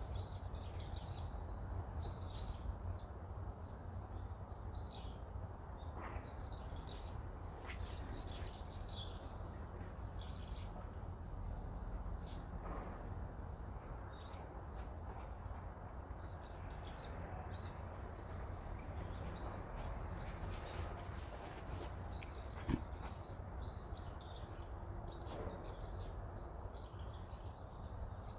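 Crickets chirping steadily: a very high chirp repeating two or three times a second, with a lower trilling chorus, over a low steady hum.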